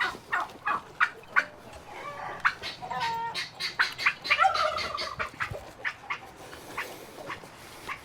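Tom turkeys gobbling: several rapid rattling calls in a row, tapering off in the last seconds.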